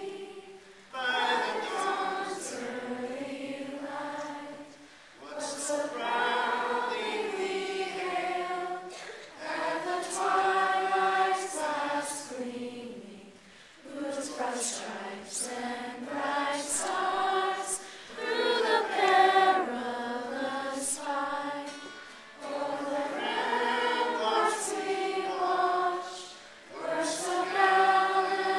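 A choir singing in sustained phrases of about four seconds each, with short breaks between them.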